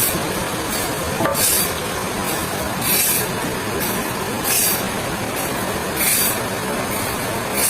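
Sawmill machinery running steadily, with a short hiss repeating about every second and a half.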